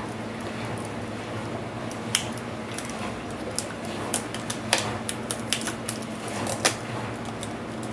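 Sharp clicks and taps of an ASUS G1S laptop's plastic and metal parts being handled and pried apart during disassembly, a dozen or so irregular clicks over a few seconds, over a steady low hum.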